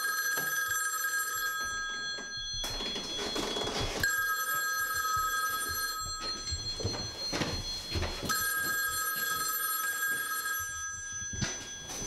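Old desk telephone's bell ringing in the standard ring-pause cadence: rings of about two seconds, three of them, the first already going at the start.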